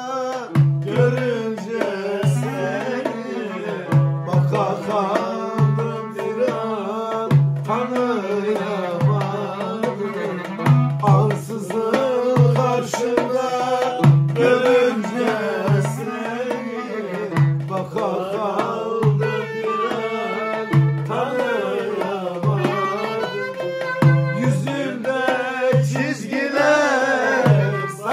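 Turkish folk music: a clarinet plays a winding, ornamented melody over a plucked long-necked lute with a metal bowl body (cümbüş), with a steady low drum beat underneath.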